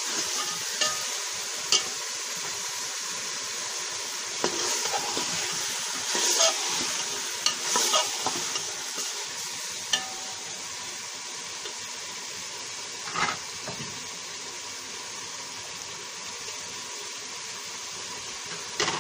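Steel spoon stirring and scraping sliced potatoes and green beans around a steel pot, with the frying sizzle of the spiced mixture underneath. The scrapes and clinks come often in the first half and only now and then after about ten seconds, while the sizzle goes on steadily.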